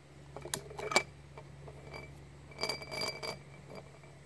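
Glass jar with a clamp lid clinking and rattling as ethanol vapour from vodka ignites inside: a sharp click about a second in, then a quick run of ringing glass chinks near three seconds as the pressure of the burning vapour shakes the jar and lid.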